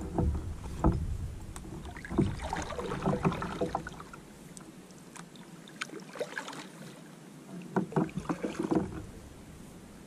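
Kayak paddling: the paddle blades dip and splash in the water, with light knocks and clatter, in bursts every few seconds. A low wind rumble runs through the first few seconds.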